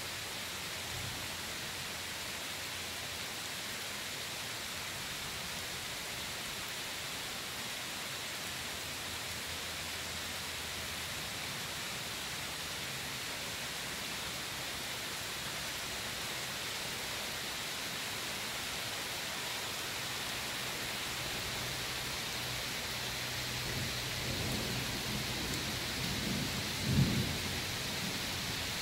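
Steady hiss of rain. A low roll of thunder builds over the last few seconds and peaks in one loud clap near the end.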